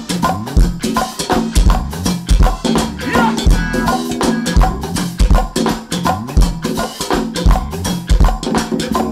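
Live band playing a groove: a drum kit with a steady kick-drum beat and busy hand percussion over bass and other instruments.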